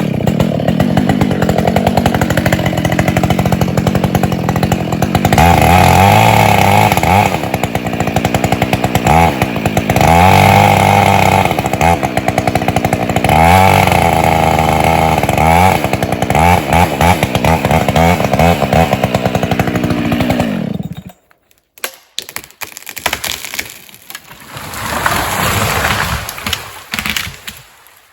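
Husqvarna 572 XP two-stroke chainsaw running hard in several bursts of high revs, dropping back between them, then cutting off about three-quarters of the way through. Scattered knocks and a swell of rushing noise follow near the end.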